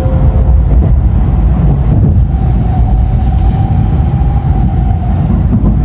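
Running noise of a Tokaido Shinkansen train heard from inside the car: a steady low rumble, with a faint steady tone coming in about two seconds in.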